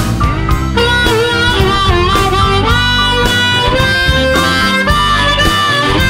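Blues harmonica solo, its notes bending up and down, over a blues band backing with guitar.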